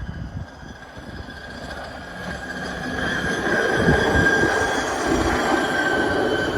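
A rail vehicle rolling past on steel wheels: a low rumble with a steady high wheel-on-rail whine, growing louder to a peak about four seconds in, then easing slightly.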